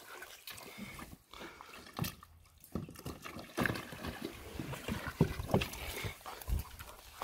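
German Shepherd splashing and sloshing water in a small plastic paddling pool, with irregular splashes that come more often in the second half.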